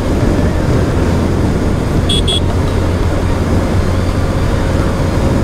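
Motorcycle engine running at steady cruising speed, with wind and road noise rushing over the camera microphone. Two short high beeps about two seconds in.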